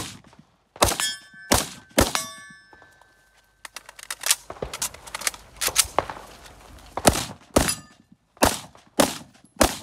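Short AK-pattern rifle firing single shots, roughly half a second to a second apart, with a cluster of fainter cracks in the middle. Steel targets ring after the early hits.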